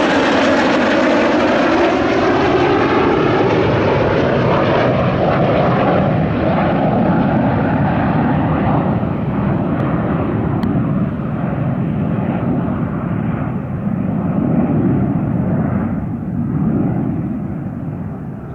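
Fixed-wing aircraft flying past: its engine tones glide down in pitch as it passes at the start, then the sound turns duller and fades as it flies away.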